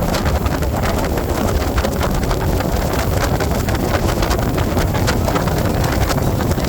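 Jet boat running at speed: steady engine and water-jet noise with heavy wind buffeting on the microphone and constant crackling.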